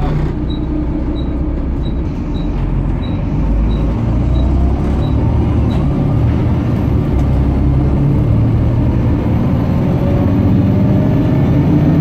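Volvo B7TL double-decker bus heard from inside the passenger saloon, its straight-six diesel running steadily under way with a low drone and a whine that rises from about six seconds in as the bus gathers speed. A high regular tick, about one and a half a second, runs through the first half and stops about six seconds in.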